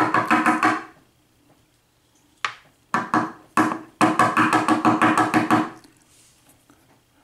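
Mortise lock cylinder being knocked rapidly against a hard surface, about ten knocks a second, with a ringing tone. There are two fast runs with three single knocks between them, shaking the upper pins and springs out of the cylinder.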